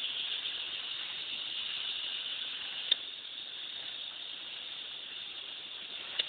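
Steady high-pitched hiss with a single sharp click about three seconds in.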